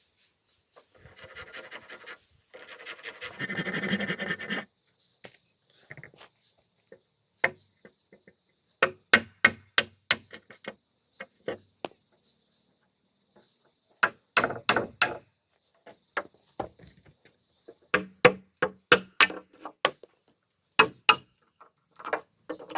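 Bursts of sharp strikes of a tool on timber, several a second in short clusters, over a steady high insect drone. Near the start a few seconds of rough scraping noise is the loudest sound.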